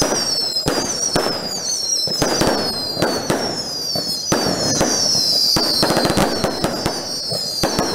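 Fireworks display (a castell de focs) going off: a rapid run of bangs and crackles, with high whistles that fall in pitch over and over.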